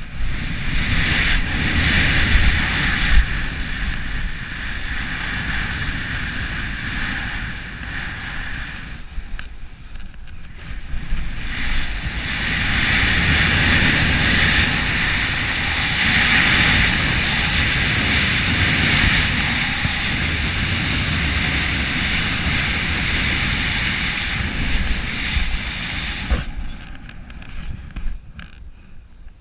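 Snowboard sliding and carving through snow, a steady rushing hiss mixed with wind buffeting the head-mounted camera's microphone. It eases off for a couple of seconds about nine seconds in, builds again, and drops away near the end.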